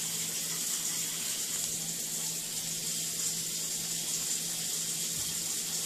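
Pancake batter sizzling on a hot griddle, a steady hiss with a faint low hum beneath.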